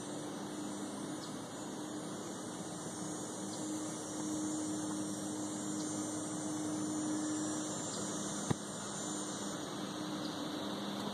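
Steady woodland ambience: an even hiss with a low steady hum under it and faint high ticks about once a second. A single sharp click comes about eight and a half seconds in.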